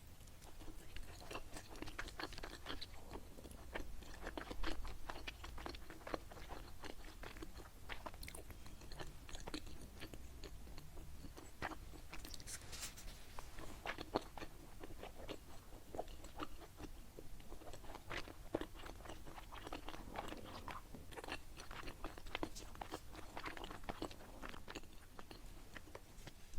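Close-miked chewing of a qingtuan, a sticky glutinous-rice dumpling filled with pickled mustard greens, minced pork and dried bamboo shoots: irregular wet mouth clicks with light crunching.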